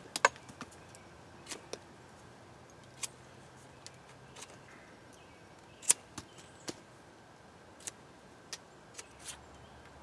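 Knife whittling a wooden stick: short, irregular scrapes and clicks as the blade cuts shavings, with two sharper, louder cuts, one at the start and one about six seconds in.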